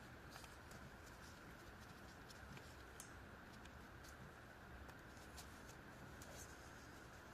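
Near silence: faint room hiss with a few soft clicks or taps.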